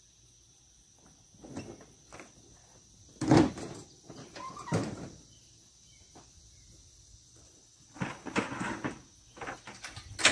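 Scattered clunks and rattles of a man getting down from a compact tractor and handling a steel man-lift basket and plastic buckets, the loudest knock about three seconds in and another sharp one at the end. A steady high insect drone runs underneath.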